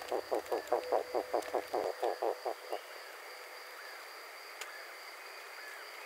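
A rapid series of pulsed animal calls, about six or seven a second, that dies away a little under halfway through, over a steady high-pitched whine and a few faint short chirps.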